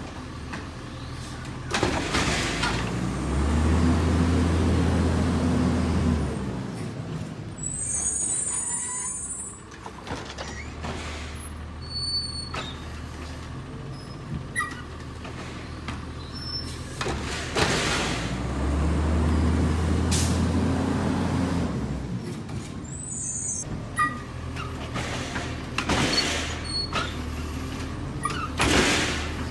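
LNG-powered Labrie Automizer automated side-loader garbage truck running. Its engine revs up twice for several seconds at a time, the load of the hydraulic arm cycling a cart, and short air hisses and bangs come between.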